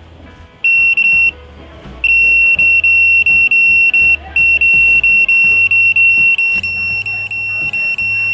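Satellite finder meter's buzzer beeping a high tone as the dish picks up a satellite signal and the meter locks on. One short beep comes about half a second in, then quick beeps follow from about two seconds, around three a second.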